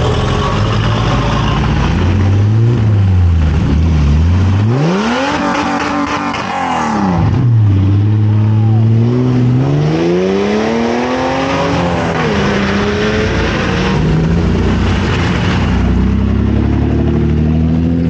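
A rally car's engine revving hard, its pitch climbing steeply and falling away twice, then settling to a lower, steadier engine note.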